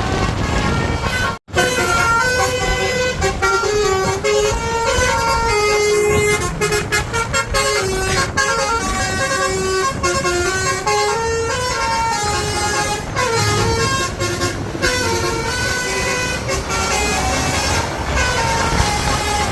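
Basuri bus horn, a multi-trumpet air horn, playing a tune of held notes that step up and down in pitch, over the low rumble of the bus engine and traffic. The sound cuts out for a moment about a second and a half in.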